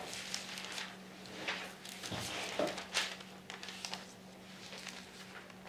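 Pages of a Bible being leafed through: soft paper rustles and light handling noises over the first three seconds or so, with a steady low hum underneath.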